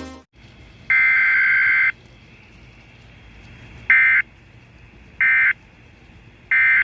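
Weather radio's digital SAME alert-code bursts played through the radio's speaker over faint hiss: one buzzy burst about a second long near the start, then three short, evenly spaced bursts. These data bursts are what activate weather radios for an alert.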